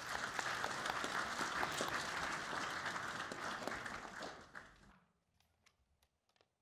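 Audience applauding, dying away about five seconds in, followed by near silence with a few faint clicks.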